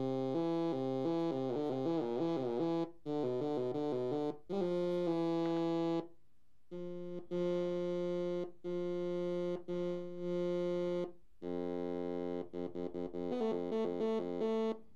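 Arturia MicroBrute SE analog synthesizer played through a small Soundfreaq speaker, one note at a time. Quick runs of changing notes at first, then longer held notes, then a burst of rapid short notes near the end, with brief silent gaps between phrases.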